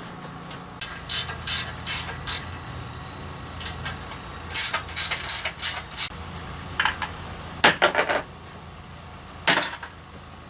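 Telescope mount hardware being handled and taken apart: short metallic clicks and clinks that come in irregular clusters, over a steady low hum.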